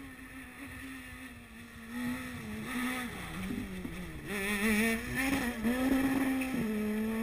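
The steady hum of a multicopter drone's motors, with a rally car's engine coming through the corner. The engine grows louder from about two seconds in, drops in pitch as the car brakes and shifts down, then rises again as it accelerates away near the end.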